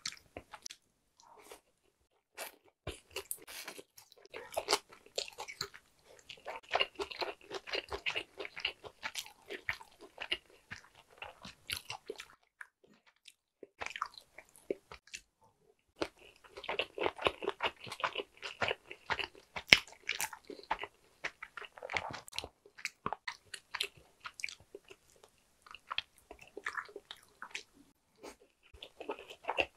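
Chewing and biting of sushi: rapid short clicks in two long bouts, broken by brief pauses between bites.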